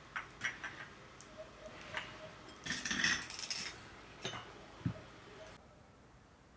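Tea glasses, saucers and teaspoons clinking at a table: a scatter of light, sharp clinks with a busier clatter about three seconds in, then the clinking stops near the end.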